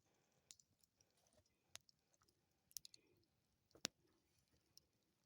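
Wood campfire crackling: sparse, sharp pops and snaps about once a second over a faint low hiss, with the loudest pop about four seconds in.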